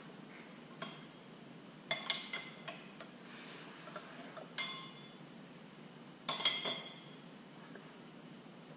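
Metal tools and engine parts clinking against each other in a few sharp, ringing clinks. The loudest come in a cluster about two seconds in, a single one at about four and a half seconds, and another loud cluster at about six and a half seconds.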